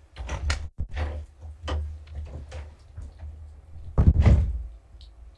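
A series of knocks and clicks, then a heavier thump about four seconds in.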